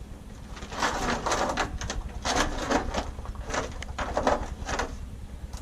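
Tank water heater being shifted across a hard surface: a run of short, rough scraping strokes over about four seconds.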